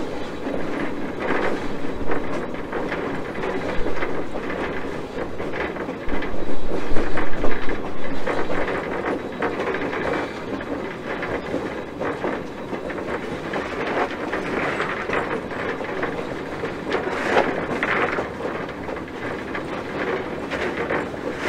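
Rail noise from the pilot of a 1920 steam switcher locomotive under way: a steady wheel-on-rail rumble with clicking, swelling louder for a couple of seconds about six seconds in.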